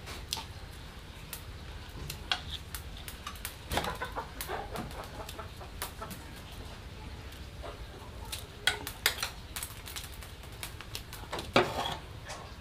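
Irregular crackling and clicking of fresh bamboo shoots being peeled and handled by hand, with a few sharper clicks about four, nine and eleven and a half seconds in.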